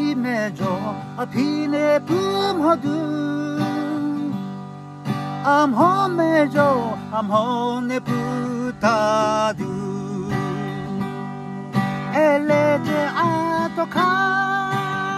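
A man singing while strumming a cutaway acoustic guitar.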